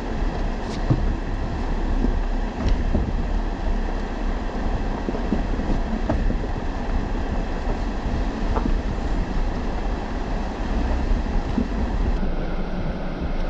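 A 4x4 vehicle driving over a rough trail: a steady low rumble with scattered rattles and knocks.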